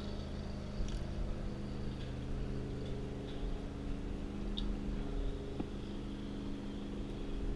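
Jet ski engine idling steadily, a low even hum.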